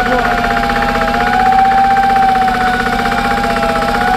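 A heavy crane's diesel engine running under load as it lifts a railway coach. It has a fast, even pulsing beat and a high whine that wavers slightly in pitch.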